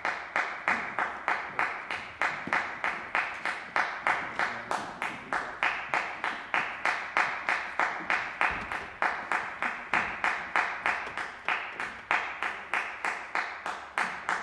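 Audience applause: hands clapping at an even pace, about three claps a second.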